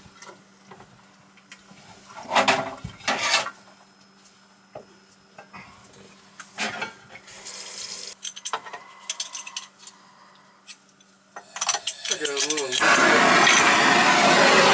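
Scattered knocks and clinks of metal tools and fittings being handled. Near the end a plumber's soldering torch is lit and burns with a loud steady hiss, ready to sweat the copper joint.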